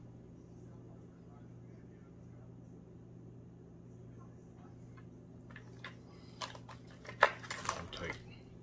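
Low steady hum, then, from about five and a half seconds in, a flurry of short clicks and rustles, loudest just after seven seconds: hands handling fly-tying materials and tinsel at the vise.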